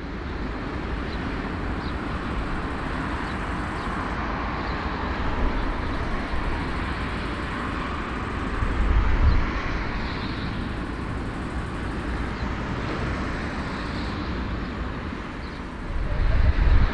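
Jet engines of a taxiing Airbus A340-300, its four CFM56 engines giving a steady rumble and rush, louder for a moment about nine seconds in.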